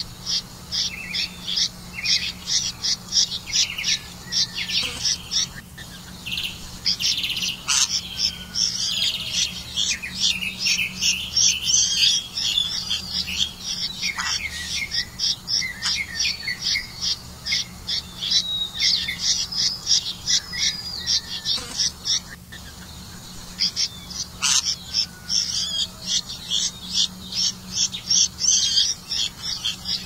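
Red-vented bulbul nestlings begging, a run of rapid, high, repeated chirps at about four a second. It thickens into denser chattering twice and pauses briefly twice.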